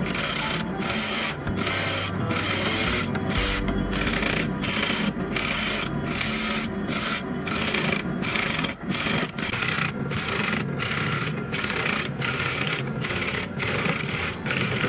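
A gouge cutting coconut wood spinning on a wood lathe: a scraping rasp that comes in regular strokes, about three every two seconds, over the steady hum of the lathe.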